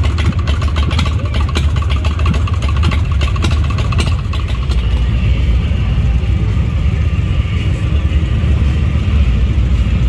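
Motorcycle engines rumbling and revving, a heavy low exhaust rumble with sharp crackles through the first few seconds.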